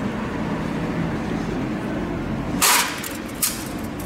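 Steady low machinery hum of a workshop, with two short, sharp noises about two and a half and three and a half seconds in, the first the louder.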